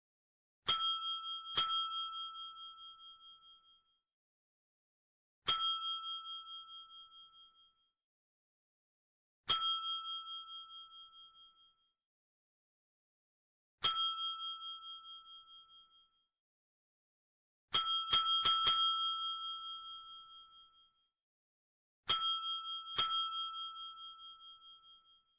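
Desk bell (service bell) struck by hand eleven times: a double ding, three single dings about four seconds apart, four quick dings in a row, then another double. Each bright ding rings on with a slight waver and dies away over about two seconds.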